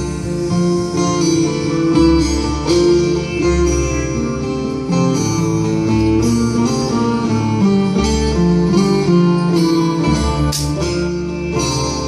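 Music with a plucked-string melody over a bass line that shifts every couple of seconds, with a steady beat.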